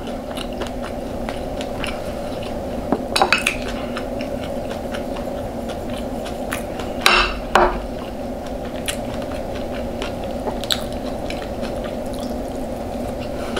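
Eating at a plate: a fork clicks and scrapes against the plate a handful of times amid chewing, over a steady background hum.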